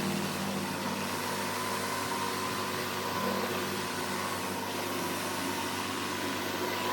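Pressure washer running steadily, with the hiss of high-pressure water spraying from a surface cleaner onto a concrete slab.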